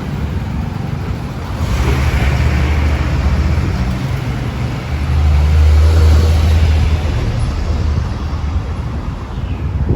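Gusty wind buffeting the microphone as an evening rainstorm moves in: a heavy fluctuating rumble under a rushing hiss, swelling about two seconds in and again around the middle.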